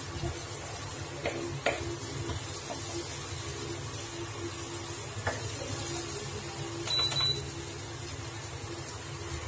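Flat spatula stirring and scraping a thick fried masala in a nonstick kadai on an induction cooktop, with a faint sizzle over a steady low hum. A few sharp scrapes come in the first seconds, and a short high squeak comes about seven seconds in.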